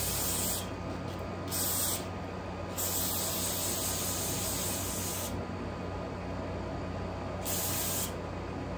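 Aerosol spray can hissing in four bursts: two short ones, then a long one of about two and a half seconds, then a short one near the end.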